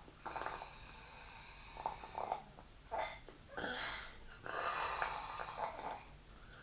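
Soft, irregular snuffling breaths: a handful of short airy puffs, with one longer breath about five seconds in.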